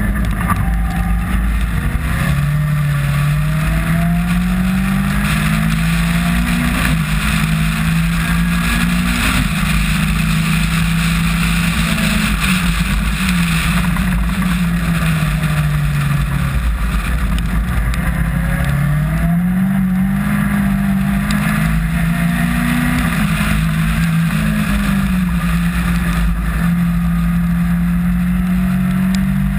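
Caterham R300 Superlight race car's engine heard onboard, pulling hard through the gears in stepped rises of pitch, dropping away around the middle, then climbing through the gears again. A steady rush of wind and wet-track spray runs underneath.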